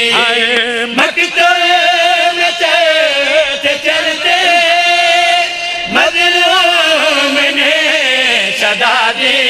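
Men singing a mourning lament (noha) refrain through a public-address system, drawing out long, wavering held notes with short breaks about one second and six seconds in.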